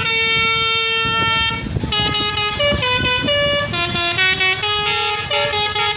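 Telolet basuri bus horn playing a tune: a multi-tone air horn holds one long note, then sounds a run of shorter notes stepping up and down in pitch.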